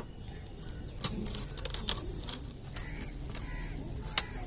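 Wet squelching of hands rubbing thick masala paste into a whole raw chicken, with irregular sharp wet clicks about once or twice a second over a steady low hum.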